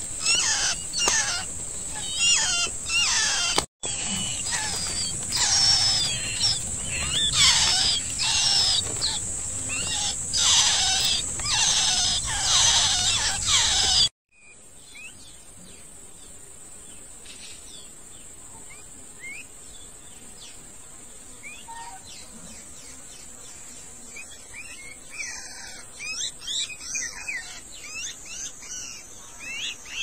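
Baby songbirds begging to be fed, giving rapid, repeated shrill chirps that sweep downward, over a steady high-pitched whine. About halfway through the sound cuts to a quieter stretch of scattered chirps, with a few louder calls near the end.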